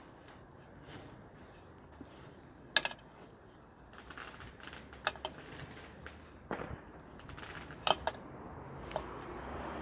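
Bonfire of rubbish crackling, with irregular sharp pops and cracks from the burning material over a steady crackling hiss.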